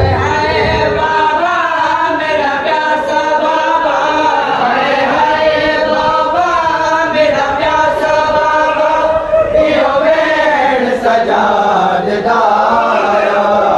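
Men chanting a noha, a Shia mourning lament, with several voices singing together in long, drawn-out lines.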